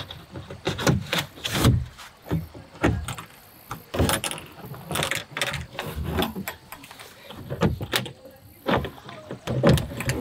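Hands handling a Tucktec folding kayak's plastic hull: irregular knocks, clicks and rustles as the foam gunwale covers are lifted off, the plastic flexes and the hull's clips are worked.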